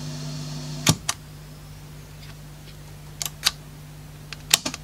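Small switches on the back panel of a Peak KA-200 transistor stereo amplifier clicking as they are tried, about six sharp clicks in pairs, over a steady low hum from the amplifier and its speaker. A hiss heard at first drops away after the first pair of clicks, about a second in.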